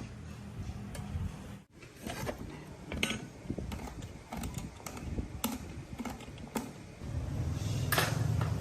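Small tools and metal parts clicking and clinking during hand work on the saw, in irregular knocks. About seven seconds in, a louder low steady hum joins in.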